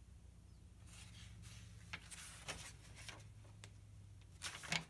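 Faint rustling and soft clicks of a paperback book's pages being handled and turned, with a louder rustle near the end.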